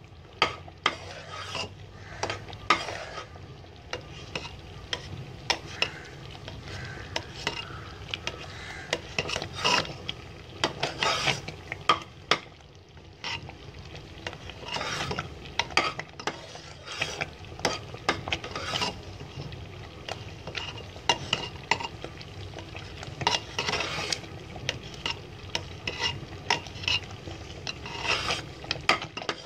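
Metal ladle stirring thick lentil-and-jaggery payasam in a pressure cooker pot, scraping and knocking irregularly against the pot's sides and bottom. The slow stirring works the cooked lentils into the jaggery syrup so the mixture thickens.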